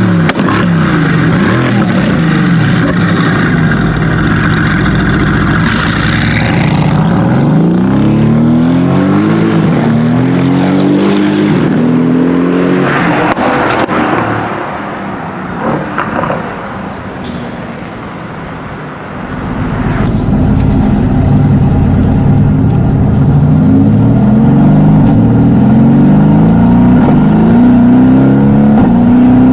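Twin-turbo 4.0-litre V8 of a Mercedes-AMG GT S tuned by PP Performance to 760 hp, accelerating hard: the engine's pitch climbs and falls back again and again through a run of upshifts. It quietens for a few seconds near the middle, then pulls through another quick series of gears.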